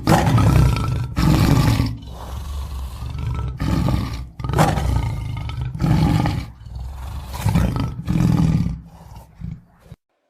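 Tiger roaring over and over, a string of about seven loud roars that stops abruptly near the end.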